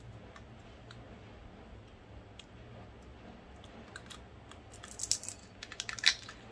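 Small KitKat snack wrapper crinkling as it is pulled and torn open by hand: faint handling at first, then a quick run of sharp crackles over the last two seconds, loudest near the end.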